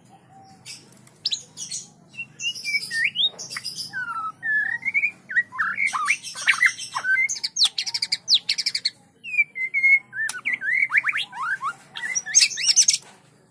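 Young white-rumped shamas (murai batu) singing at each other from neighbouring cages: a busy string of whistled notes sliding up and down, broken by quick high buzzy rattles, loudest near the end and stopping just before it.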